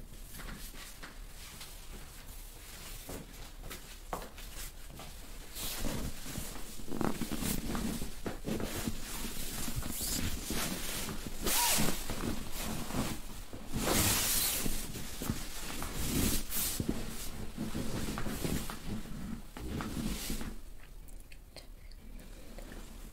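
Hands rubbing and pressing over clothing during a dry massage: uneven fabric rustling and brushing, with sheet and clothing shifting on the massage table. It grows louder and busier after about six seconds and eases off near the end.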